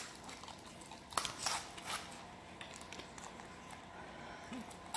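Faint crinkling and crackling of plastic toy packaging being handled and picked at, with a few short, sharp crackles between about one and two seconds in.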